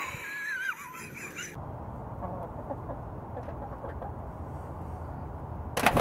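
A short warbling squeal opens. Then comes a low background of hens in a coop, with faint clucking. Just before the end there is a sudden loud burst of squawking and wing-flapping as the hens scatter.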